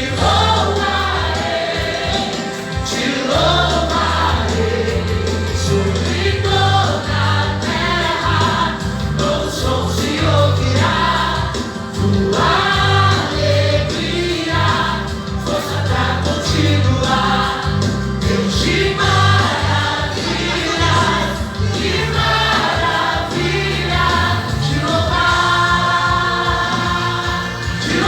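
Gospel song with a choir singing over a band with a steady bass line.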